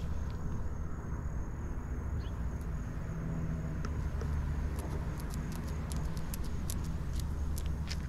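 A steady low motor hum with a faint high whine over it. A quick run of sharp clicks comes in about the last three seconds.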